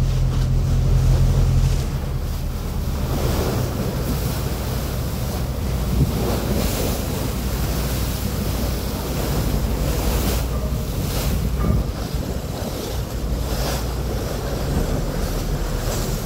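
Sea water rushing and splashing between a pilot boat and the hull of a gas tanker running alongside, with wind gusting on the microphone. A boat engine's low drone is strong at first and drops back about two seconds in.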